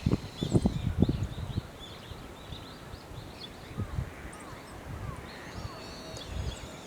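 Birds chirping: a scatter of short, high chirps and a few falling notes, with low rumbling in the first second and a half.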